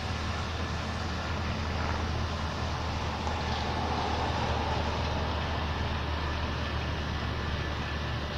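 Steady low mechanical hum over an even background rush.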